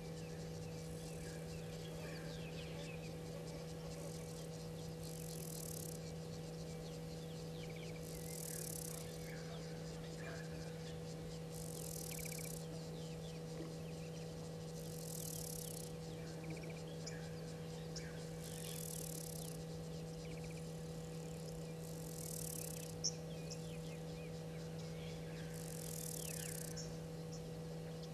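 Bush ambience: an insect's high buzz repeating in bursts of about a second every three to four seconds, with scattered faint bird chirps over a steady low hum.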